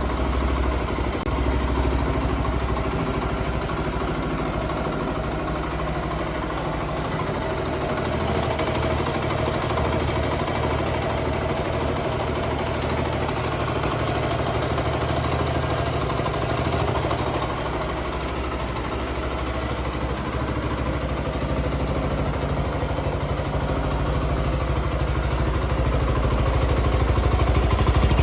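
Zontes ZT 125 G1's 125 cc single-cylinder engine idling steadily through its stock exhaust.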